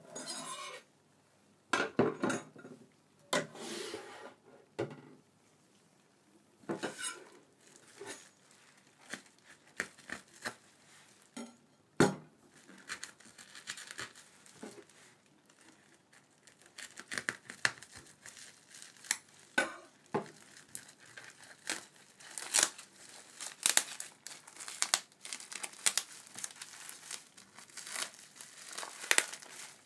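A taped black plastic mailer being handled and torn open, with plastic crinkling and tearing in irregular bursts and bubble wrap rustling as the wrap is pulled back. A few sharp knocks stand out, the loudest about twelve seconds in.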